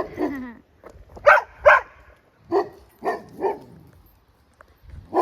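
Mastiffs barking repeatedly, about seven loud barks at uneven intervals, the first trailing off into a falling whine.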